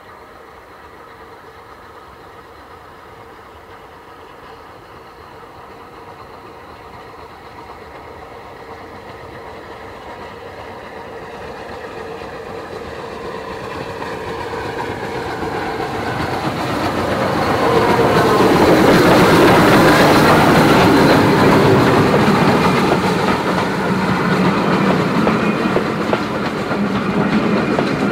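SR Rebuilt Battle of Britain class three-cylinder steam locomotive working hard as it hauls a train towards and past the listener. The sound builds steadily from faint to its loudest about two-thirds of the way in as the engine goes by, then the coaches roll past with a clickety-clack over the rail joints.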